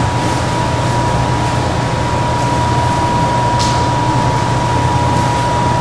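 Steady background hiss with a low hum and a thin, steady high whine, with one brief soft swish about three and a half seconds in.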